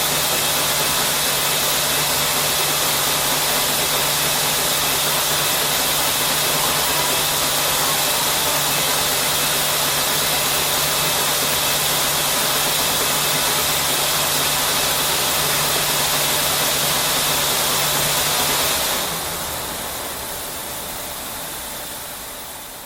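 Knitting machine running: a loud, steady mechanical whir with a constant low hum. About nineteen seconds in the hum stops and the sound drops and fades away.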